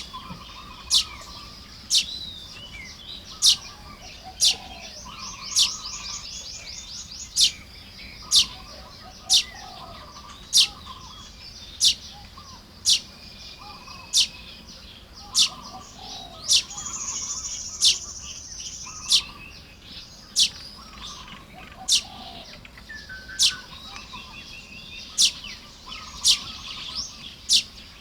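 Baya weavers chattering at their nests during nest-building, with high, wheezy, buzzing trills. Loud, very short sharp notes come about once a second throughout.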